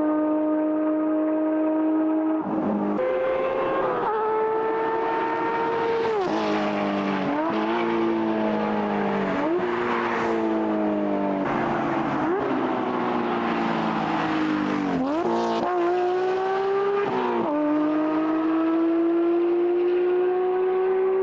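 Porsche 992 GT3's naturally aspirated flat-six, with a Valvetronic Designs exhaust, running hard at high revs while being driven; the pitch climbs slowly in each gear and breaks off sharply at several gear changes.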